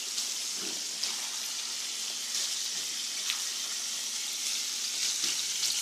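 Blackened shrimp frying in olive oil in a skillet: a steady sizzling hiss, with a few light clicks. The shrimp are cooked halfway.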